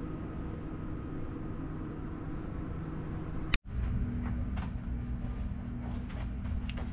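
Steady low rumble of a moving vehicle. A sharp click and a brief dropout come about halfway through, then the rumble carries on with a faint steady hum.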